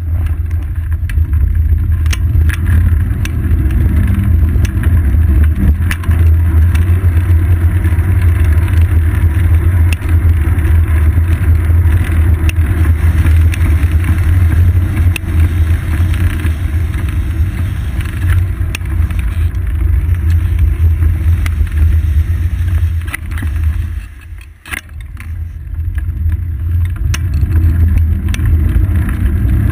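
Wind rush and road rumble on a bicycle-mounted action camera while riding, a heavy steady low roar with scattered small knocks and rattles from the mount. The noise drops away briefly about 24 seconds in, then builds again.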